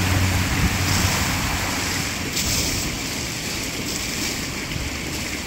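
Water from a large fountain's collapsing jets falling back and splashing into the pool, a steady rain-like rush that eases a little about two seconds in as the spray dies away.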